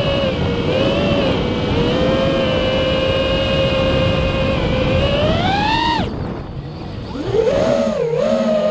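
FPV quadcopter's brushless BotGrinder motors and propellers whining at a steady pitch. About five seconds in the whine rises, then drops sharply as the motors spin down at about six seconds, and climbs back up a second later.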